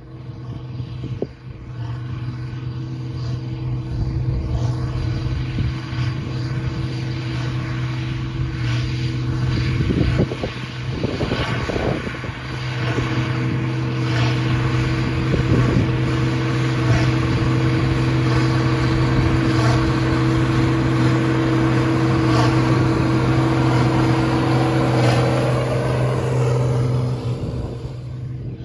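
International 5488 tractor's 466 cubic inch turbocharged six-cylinder diesel running steadily under load while pulling a New Holland BB940 big square baler through straw, mixed with the baler's mechanical clatter. The sound grows louder over the first few seconds as the rig comes closer.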